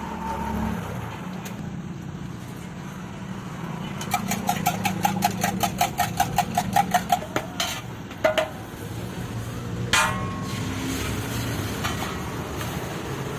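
Rapid metal-on-metal strikes with a ringing note, about six a second for some three seconds, then a few single clanks, typical of a metal utensil chopping on a griddle at a street-food stall. Steady traffic noise runs underneath.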